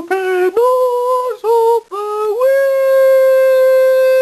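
A single voice singing a short tune of about five notes, breaking between them, with the last note held for about two seconds.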